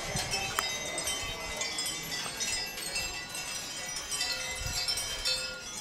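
Many small hanging bells on the pagoda spires tinkling in the wind: a steady tangle of overlapping high ringing notes, with new strikes coming every moment.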